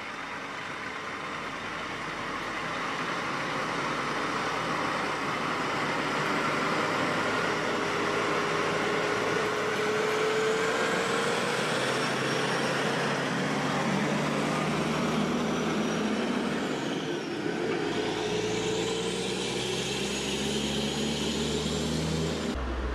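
Heavy-haulage truck towing a many-wheeled platform trailer loaded with a diesel locomotive, passing slowly: diesel engine running and tyre rumble, growing louder as it approaches and going by with a hiss that sweeps down and back up. Just before the end it cuts to a steady low hum.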